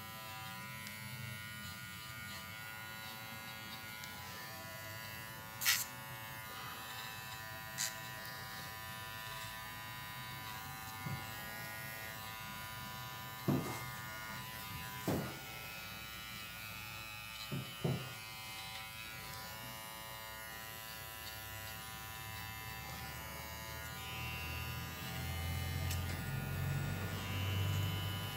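Cordless pet finishing clipper running steadily as it trims the fur around a poodle's paw pads, with a few short clicks along the way. A low hum grows louder near the end.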